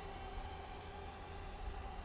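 Steady outdoor background: an uneven low rumble with a faint, even hum and hiss above it, with no distinct event.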